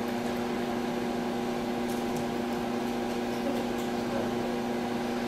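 Room tone: a steady hum, with a few faint ticks about two seconds in.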